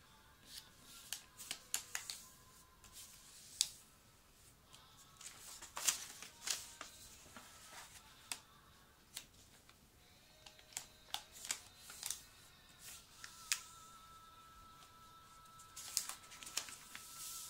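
Sheet of origami paper rustling and crackling as it is folded and its creases pressed down by hand: an irregular string of short, sharp crackles, loudest about six seconds in.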